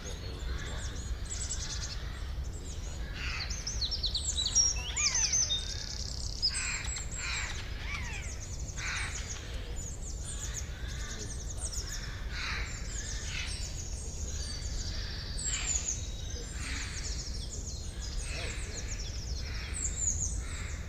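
A chorus of birds chirping and singing, with many short, quick calls overlapping throughout and a busier stretch about four to six seconds in. A steady low rumble runs underneath.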